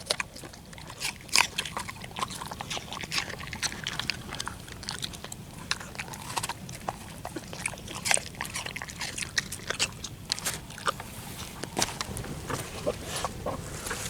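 Dog chewing apple pieces: a run of irregular wet crunches and clicks.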